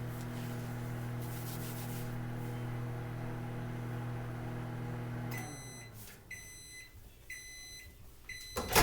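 Microwave oven running with a steady hum that cuts off about five seconds in. Its end-of-cycle beeper then sounds about once a second, four times, and a loud clack comes near the end.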